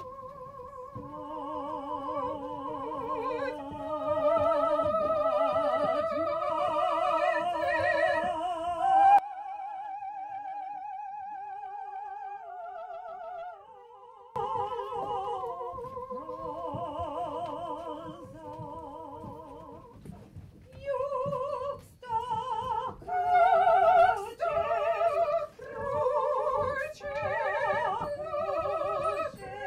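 Classical-style singing in several voice parts, each with a strong vibrato. The texture thins to fewer, quieter voices in the middle, then breaks into short phrases with brief gaps between them toward the end.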